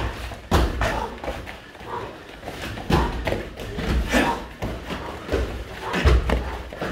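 Irregular thuds of kicks and punches landing during full-contact kyokushin karate sparring, about half a dozen blows, the heaviest near the middle and end.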